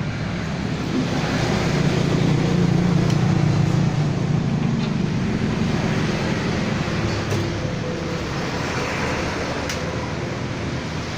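Road traffic: a steady rumble of passing vehicles, with one swelling louder about two seconds in and fading after about four seconds.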